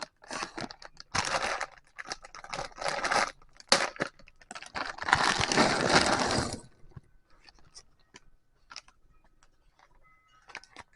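Plastic packaging of a Lego set crinkling and tearing, loudest about five to six seconds in, then stopping and giving way to a few light clicks of pieces being handled.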